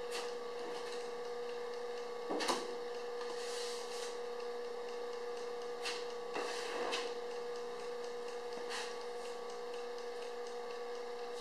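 Plastic spreader scraping body filler across sheet metal in a few short strokes, over a steady electrical hum.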